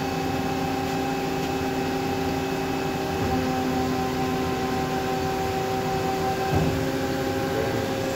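Hyd-Mech H14A automatic horizontal bandsaw running, a steady mechanical hum made of several held tones over a low rumble. About six and a half seconds in there is a brief low bump and one of the higher tones drops out.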